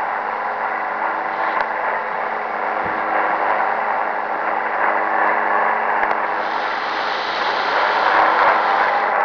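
Shortwave radio receiver in upper-sideband mode picking up a Chinese-language broadcast whose music comes through garbled and distorted by the sideband demodulation, over static and a few steady humming tones. From about six seconds in, a patch of brighter hiss rises over it and fades just before the end.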